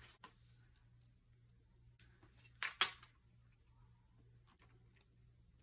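Light handling noises of card-making work on a table: a few small clicks and taps, with two sharper clicks close together about two and a half seconds in, over a faint steady hum.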